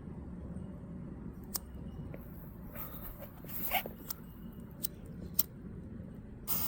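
Outdoor wind rumble on the microphone, with a few sharp clicks and a rustling, handling-type noise around the middle. Near the end a hissing noise starts abruptly and keeps going.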